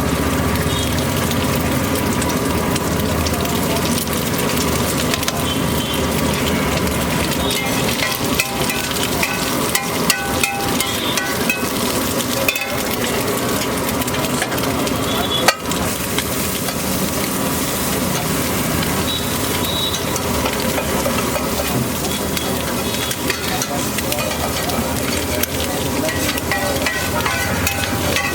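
Egg dish frying with a steady sizzle, with scattered utensil clicks and one sharp click about halfway through.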